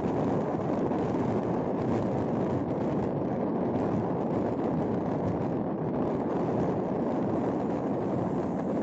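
Steady road and wind noise from a vehicle driving along a highway, with most of the sound low in pitch and no distinct events.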